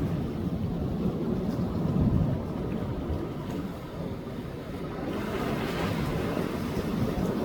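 Sea waves breaking and washing up a beach, surging about two seconds in and again near the end, with wind rumbling on the microphone.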